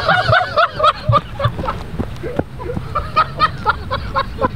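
Men whooping and shouting in excitement, with bursts of quick, chopped laughter, celebrating a chip shot holed for an eagle.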